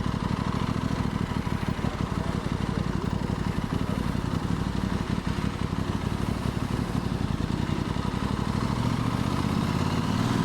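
Aprilia Tuono 660's parallel-twin engine running steadily, heard from the rider's helmet camera.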